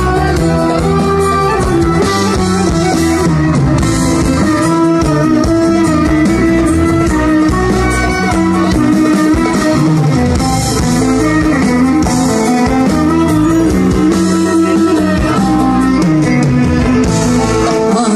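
A live band playing amplified music, an instrumental passage with guitar to the fore.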